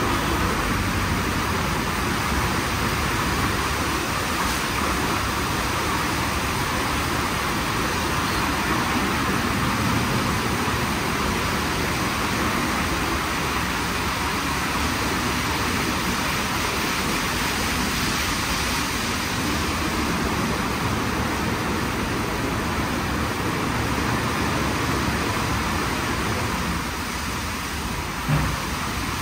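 WashTec SoftCare² gantry car wash running, a steady noise of its machinery and water. A short knock near the end.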